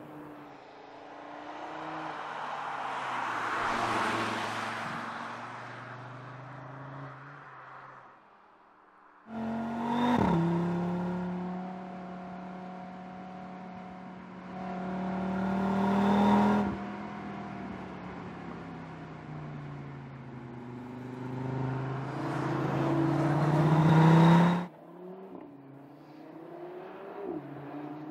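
Audi RS3 Sportback's turbocharged 2.5-litre five-cylinder engine and RS sports exhaust under hard acceleration. The note swells and fades in the first few seconds. From about nine seconds it pulls twice, climbing in pitch and loudness, and each pull cuts off suddenly, followed by a quieter engine note.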